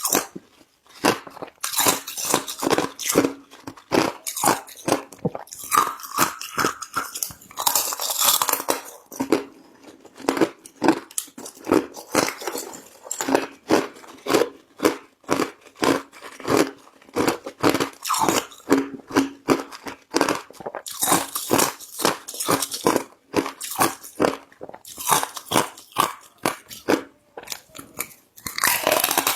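Ice being bitten and chewed close to the microphone: a dense, irregular run of sharp crunches and cracks, with a few louder, longer grinding stretches.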